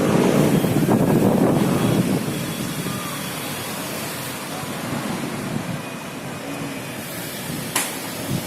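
Dust-storm wind blowing hard and buffeting the microphone, strongest in gusts during the first two seconds and then steadier. A single sharp click near the end.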